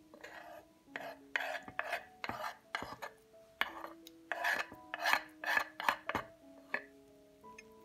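A quick, uneven series of about a dozen short rasping, scraping strokes, over soft background music with held notes.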